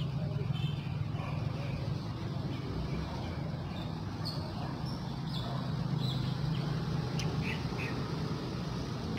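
Steady low hum of an engine running, with short high bird chirps now and then, most of them in the second half.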